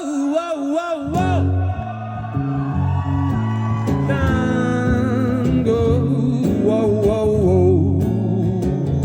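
Live band music: a singer holding long wavering notes without words over guitar, bass and drums.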